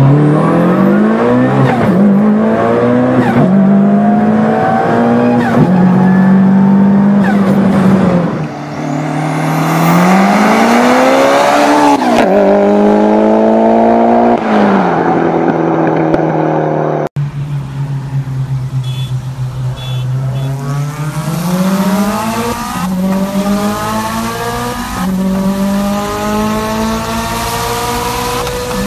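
Turbocharged car engines at full throttle, climbing in pitch through the gears and dropping back at each upshift. The first run is a Mitsubishi Lancer Evolution heard from inside the cabin. About 17 seconds in the sound cuts suddenly to another hard run that pulls up through several more gears.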